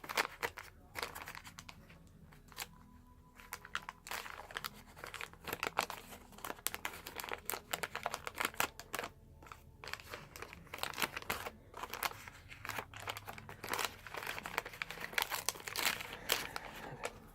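Wax-paper wrapper of a 1981 Donruss baseball card pack crinkling and tearing as it is worked open by hand, in irregular crackles throughout.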